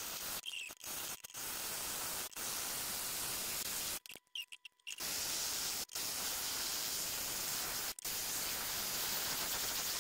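Steady hiss of a thin stream of tap water running over a glass pane in a sink, cooling a glass-drilling bit. The hiss cuts out abruptly several times, longest for about a second around four seconds in.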